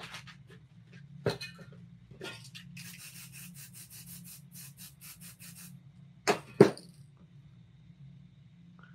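A sheet of paper is rubbed and peeled off a spray-painted canvas, with a knock. Then comes a run of short spray-can bursts, about four a second, misting paint on. Two sharp knocks follow about six and a half seconds in.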